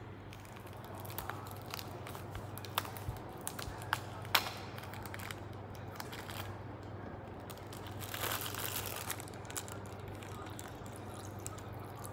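Thin plastic bag crinkling and crackling in the hands as it is handled and opened, with sharp clicks and a longer rustle about eight seconds in, over a steady low hum. Near the end, broth is poured from the bag onto the plate.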